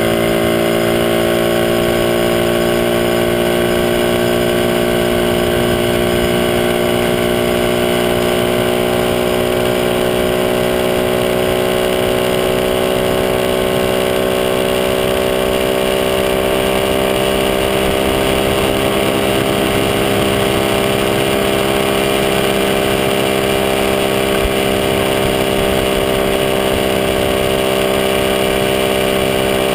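Small motorcycle engine running steadily at cruising speed, recorded close up from a mount on the moving bike, its pitch creeping slowly higher as it gathers speed.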